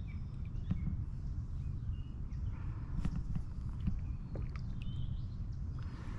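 Outdoor ambience from a kayak on a pond: a steady low rumble with a few light knocks on the kayak, and several short bird chirps.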